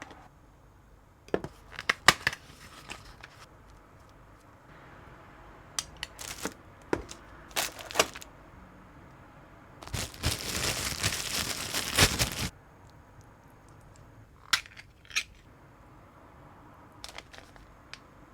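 Gear being handled by hand: scattered sharp clicks and knocks, and a crinkling, tearing noise lasting about two and a half seconds starting about ten seconds in.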